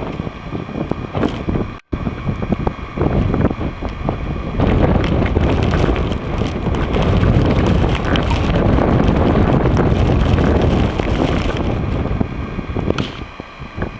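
Storm wind buffeting the microphone as a loud rushing noise. It cuts out for an instant about two seconds in, grows louder about four seconds in, and eases near the end.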